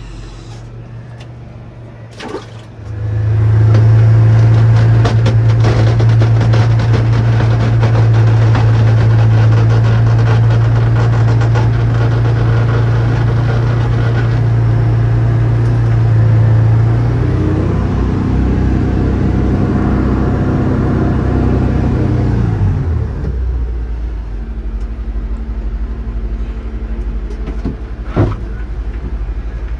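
SnoBear tracked ice-fishing vehicle running across lake ice, heard from inside its cabin. About three seconds in its engine comes up to a loud, steady low drone. Later a whine falls in pitch over several seconds and the machine runs on more quietly.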